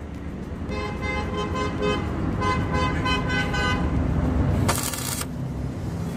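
Arc welding on the cracked rear twist beam of a Tata Vista, its arc crackling and hissing loudest in a short burst near the end. A vehicle horn sounds twice in the first half, each blast about a second long, over a low traffic rumble.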